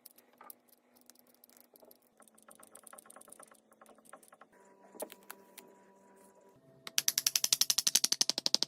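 Fast runs of mechanical clicking, about nine clicks a second from about two seconds in, then a much louder rapid rattle of about fifteen clicks a second near the end.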